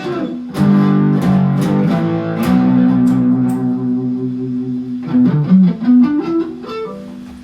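Guitar ending a song: several strummed chords, then a chord held for a few seconds, then a short run of notes stepping upward that rings out and fades away.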